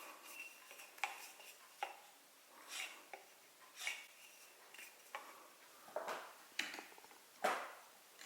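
Tools and pieces of wood being handled and set down on a workbench: scattered light clicks and knocks with a few short scrapes, the loudest scrape near the end.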